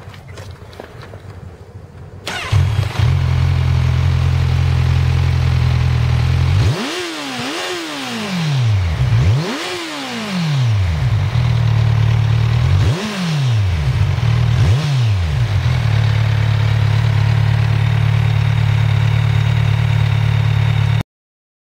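2010 Kawasaki Z1000's inline-four engine through an M4 slip-on exhaust: it starts up about two seconds in and idles. It is blipped four times, each rev rising and falling quickly, then settles back to a steady idle. The sound cuts off suddenly near the end.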